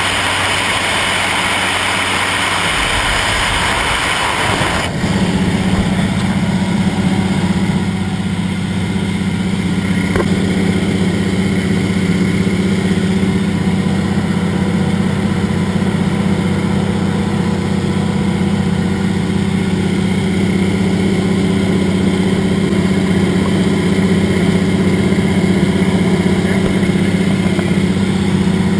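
Single-engine float plane's piston engine and propeller droning steadily in cruise. For the first five seconds the sound is mostly rushing wind hiss. It then changes abruptly to a steady low engine hum heard from inside the cabin.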